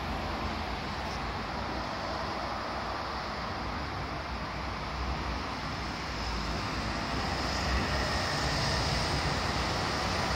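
Steady rushing ambient noise with no clear source, growing a little louder about seven seconds in.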